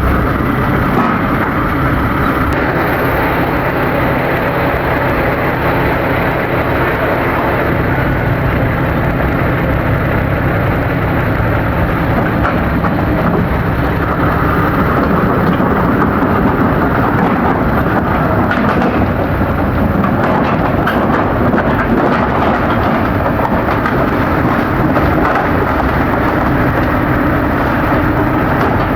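Bulldozer's diesel engine running steadily under load as it works soil, with a continuous low hum and heavy mechanical noise.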